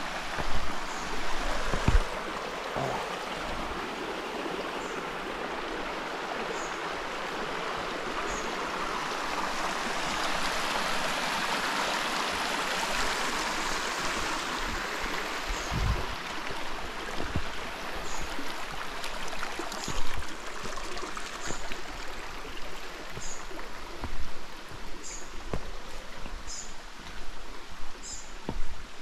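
Shallow rocky creek running and splashing over rock ledges and stones, louder for a few seconds midway. A few low thumps, and short high chirps repeating every second or two.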